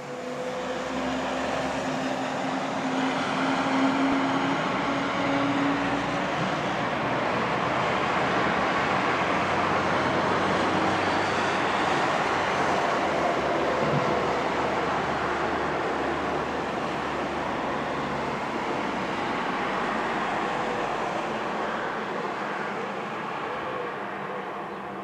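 Steady wash of distant engine noise, building over the first few seconds and easing slightly near the end.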